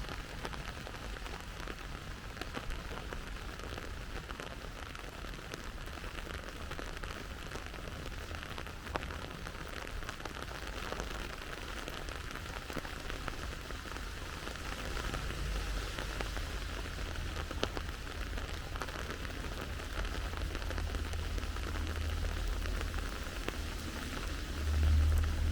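Steady rain falling, with scattered drops pattering. A low rumble underneath grows louder near the end.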